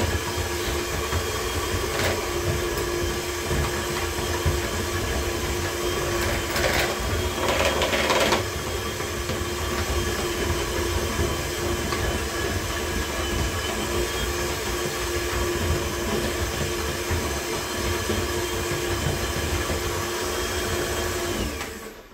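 Electric hand mixer with dough hooks running steadily, kneading minced meat in a plastic bowl, with a steady motor whine. It is briefly louder around eight seconds in, and the motor switches off near the end.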